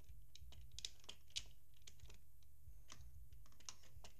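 Plastic LEGO bricks clicking and clattering in irregular, rapid ticks as pieces are handled and pressed together, with two sharper clicks about a second in, over a low steady hum.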